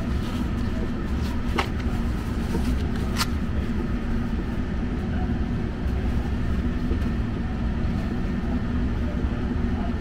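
Trane furnace blower running with a steady low hum and rush of air. Two sharp clicks about a second and a half apart come from tools being handled in a soft tool bag.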